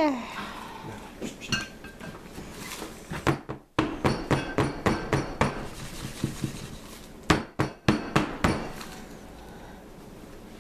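A wooden soap mold knocked against a hard countertop: a few knocks, then a quick run of about a dozen, then a few louder ones later, settling the fresh soap batter in the mold.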